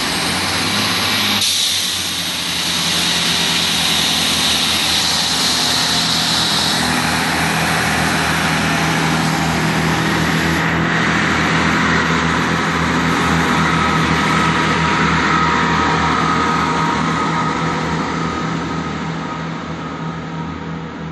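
Chiltern Railways diesel multiple unit running past close by: a steady low engine drone with wheel-on-rail noise, a high hiss over the first several seconds, and a whine coming in about halfway. It fades gradually near the end as the train draws away.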